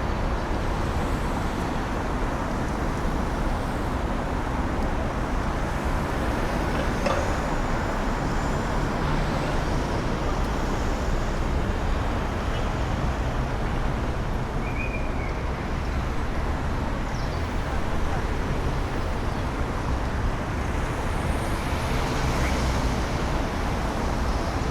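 Busy city street ambience: a steady wash of road traffic rumble, with a few faint short high sounds on top.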